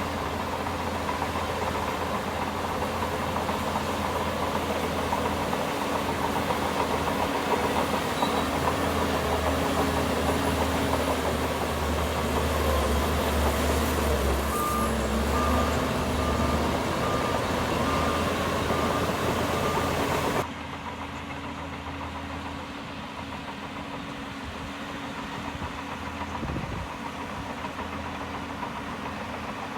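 Heavy earthmoving machine's diesel engine running steadily, with a back-up alarm beeping roughly once a second for several seconds past the middle. About two-thirds of the way through the sound cuts abruptly to a quieter engine running.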